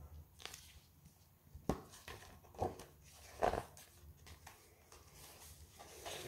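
A hardcover picture book being opened and its pages turned: a few short paper rustles and soft knocks of handling.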